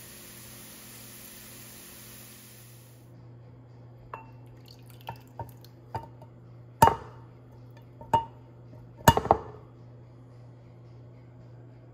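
Kitchen utensils clinking against dishes: about eight sharp clinks with a short ring, loudest around seven and nine seconds in. Before them a steady hiss cuts off suddenly about three seconds in, and a low steady hum runs underneath.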